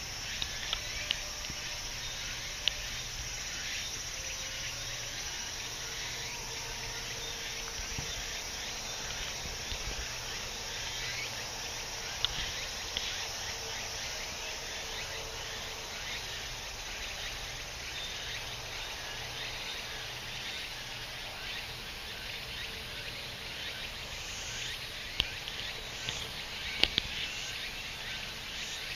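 Dense, steady chorus of summer insects, with a thin mosquito whine near the microphone through the middle and a few sharp clicks.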